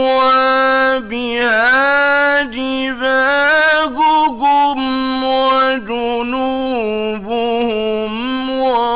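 A man reciting the Quran in the melodic mujawwad style, drawing out long held notes with ornamented turns and brief breaths between phrases, in an old radio-studio recording.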